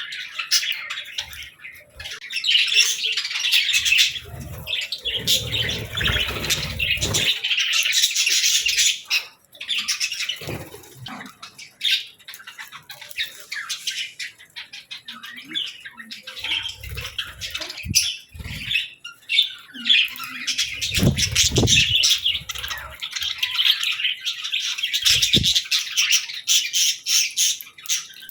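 Budgerigars chattering: a steady, busy mix of chirps, warbles and squawks, with a few dull low thumps in between.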